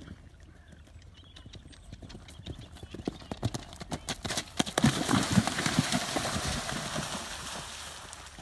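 Hooves of a Connemara-type pony at a canter, the knocks growing louder, then a long splash as the pony gallops through a water jump. The splash is loudest about five seconds in and fades near the end.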